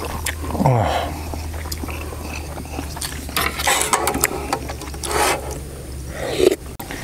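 Metal tongs clinking and scraping against a metal mess tin of ramen, over a steady low hum. A short falling tone sounds about half a second in.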